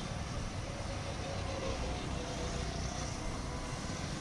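Steady low rumble of road traffic and vehicle engines on a busy city street, with a faint wavering engine whine partway through.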